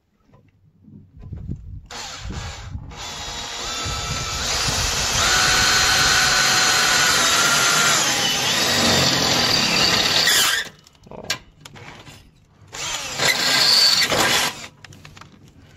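Power drill boring a hole for a rivet nut insert: the motor winds up and runs steadily under load, its pitch sags, and it stops about ten seconds in. A second, shorter burst of drilling follows near the end.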